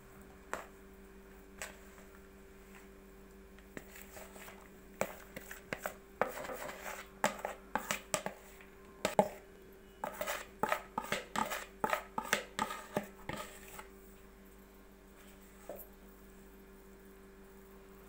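A spoon scrapes and knocks against a plastic bowl as ground walnut-and-almond filling is tipped out onto pastry in a baking tray. There are a few single taps at first, then a dense run of clicks and scrapes in the middle, then it quiets to soft spreading near the end.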